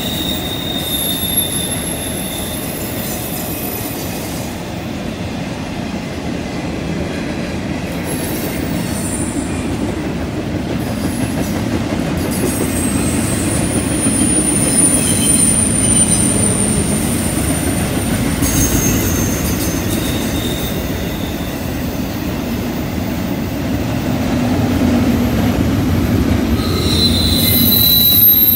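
Double-stack intermodal freight train's well cars rolling past on a curve: a steady rumble of wheels on rail, with thin high-pitched wheel squeal that comes and goes every few seconds as the wheels grind against the curved rail.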